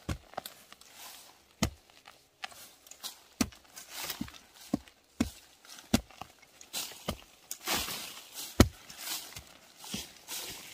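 A series of irregularly spaced dull thuds, roughly one every second or so, with the loudest just past the middle, over softer rustling of leaves and plants.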